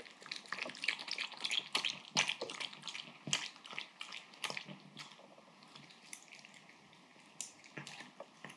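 A papillon eating udon in broth from a bowl: quick wet clicks and smacks of mouth and tongue as it laps and chews, dense for the first five seconds, then sparser with a few near the end.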